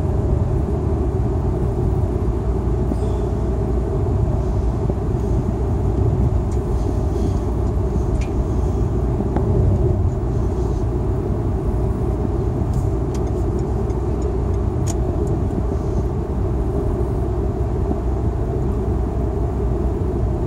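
Steady low rumble of road noise inside a car cabin at motorway speed, with a few faint ticks.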